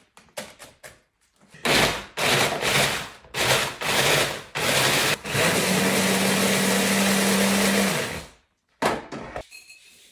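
Electric stick blender with its mini-chopper attachment crushing tortilla chips: a few clicks and rustles, then several short pulses of the motor, then one steady run of nearly three seconds with a low motor hum that stops. A brief rustle follows near the end.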